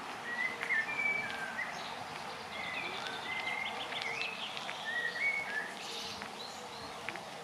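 Songbirds singing: a run of short whistled phrases and chirps, with a faint steady hum underneath.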